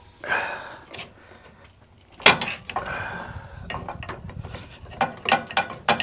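Hand tool scraping and knocking against metal parking-brake hardware on a truck's rear brakes: two scrapes with a ringing tone, a sharp knock about two seconds in, then a run of quick clicks and knocks.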